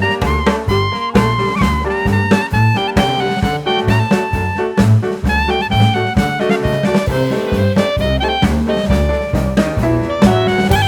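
Jazz background music with a steady beat: a horn-like melody over bass and drums.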